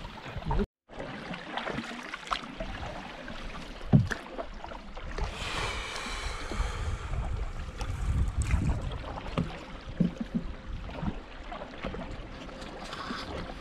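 A canoe under paddle: water washing and lapping against the hull, with wind on the microphone and scattered knocks, the loudest about four seconds in. The sound cuts out briefly just under a second in, and a short higher-pitched sound comes through around the middle.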